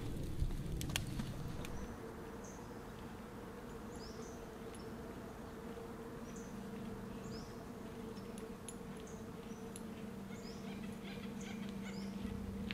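Wood campfire crackling with sharp pops for the first second or two, then small birds chirping in short, repeated high calls over a steady low hum.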